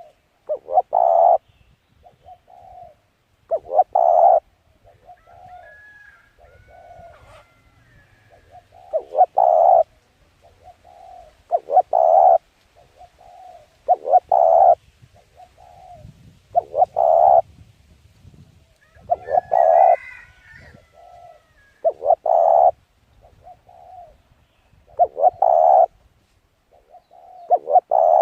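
Dove cooing in a repeated pattern: a loud, low coo phrase about every two and a half seconds, with softer notes between. Another small bird chirps faintly a couple of times.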